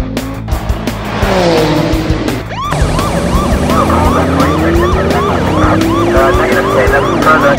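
Car sound effects dubbed over a toy chase: a tyre screech about a second in, then from about three seconds in a fast yelping police siren over a car engine revving up and holding a steady note.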